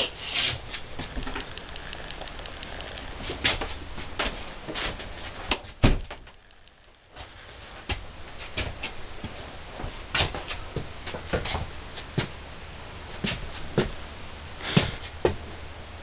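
Handheld camera handling noise inside a small room: irregular clicks, knocks and rubbing, with a quick run of light ticks in the first few seconds, a quieter moment about six seconds in, and a low steady hum underneath.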